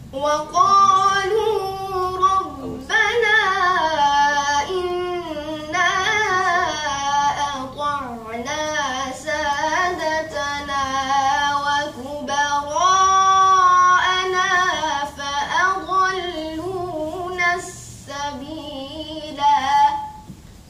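A boy's voice reciting the Quran in the melodic tajweed style, drawing out long notes with wavering, ornamented pitch in several phrases separated by short breaths. It is heard through a TV speaker.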